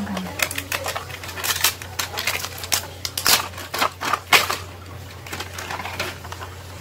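Plastic wrap crinkling and tearing as it is pulled off a product box: a rapid, irregular run of crackles that dies down about five seconds in.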